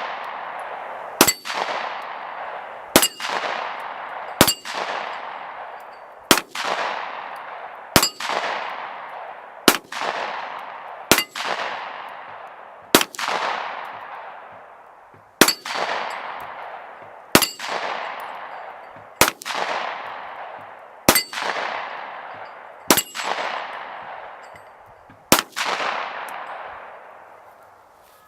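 Smith & Wesson M&P40 pistol, converted to 9mm with a conversion barrel and magazine, firing slow, deliberate single shots, about fourteen of them one every two seconds or so. Each shot is followed by a long fading ring.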